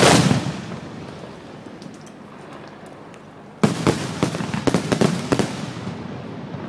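Aerial fireworks bursting overhead. A loud bang at the start fades into faint crackling, and about three and a half seconds in a rapid barrage of sharp reports breaks out.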